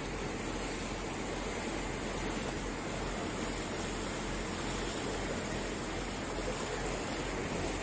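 Steady noise aboard a boat under way on a river: the rush of water and wind over a constant low engine hum.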